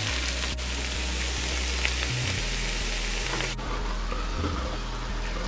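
Steady sizzle of frying: first the stewed saltfish in a nonstick pan, then, after a cut about three and a half seconds in, Guyanese salt bake frying in a pot of hot oil.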